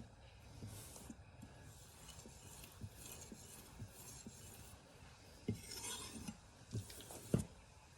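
Steel knife blade stroked over a four-sided diamond strop in faint, soft rubbing strokes, with a few light knocks and clinks in the second half, the loudest near the end.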